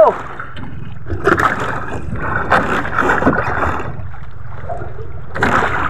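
Steady low rumble of wind and sea around a small outrigger fishing boat. Short rustling knocks come about a second in, around three seconds, and near the end as a fisherman handles a freshly caught skipjack and his handline.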